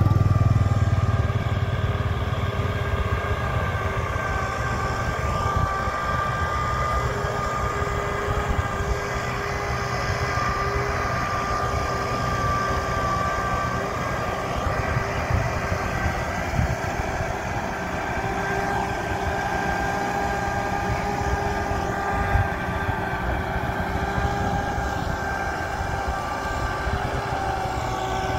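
Diesel engine of heavy farm machinery (a tractor or rice combine harvester) running steadily under load, with a steady whine over the low engine rumble, a little louder in the first second or two.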